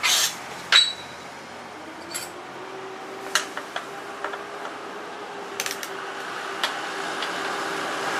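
Metal-on-metal clinks and taps from hand tools and small metal parts being handled. Two sharp clinks come in the first second, the second one ringing briefly, followed by scattered lighter taps and a short cluster of clicks about five and a half seconds in.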